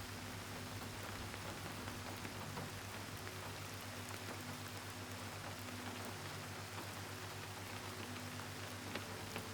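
Soft steady rain falling: an even hiss with scattered fine drop ticks.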